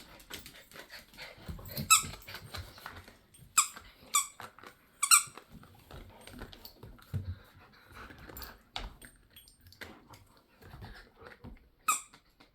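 A dog's squeaky toy squeaking in short, separate squeaks as dogs bite and tug at it: about five squeaks, one near 2 s, two around 4 s, one at about 5 s and one just before the end. Quieter low knocks and rustling from the dogs handling the toy fill the gaps.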